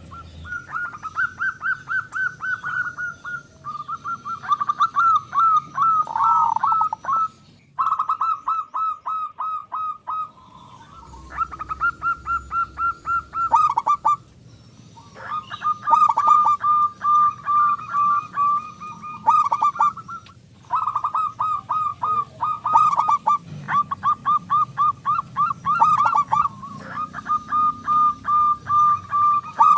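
Zebra doves (perkutut) cooing in rapid staccato runs of short notes, broken by a few brief pauses.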